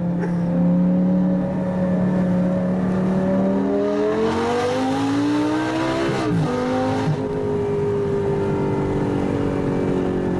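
Lamborghini engine heard from inside the cabin, running steadily, then revving up under acceleration for about two seconds. Quick upshifts drop the pitch just past the middle, and it settles back to a steady, lower run.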